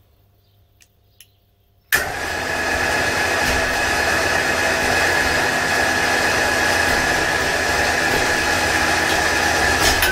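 A loud, steady machine noise with a steady high whine, starting suddenly about two seconds in and cutting off abruptly.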